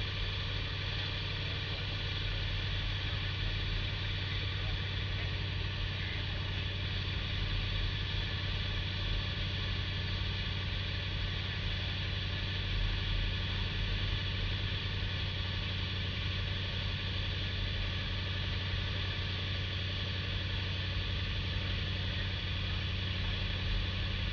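Ford Super Duty pickup engine idling steadily, with an even low hum and no revving.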